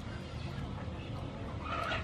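A chicken clucking, starting near the end, over a steady low rumble.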